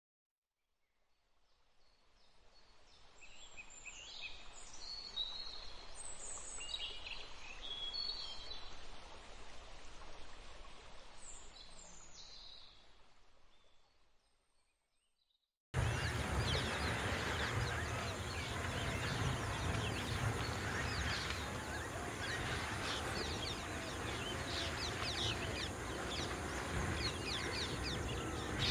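Outdoor ambience with scattered high bird calls that fade in and then out. About halfway through it cuts to a louder, dense chorus of rapid chirps from birds or insects over a steady low rumble.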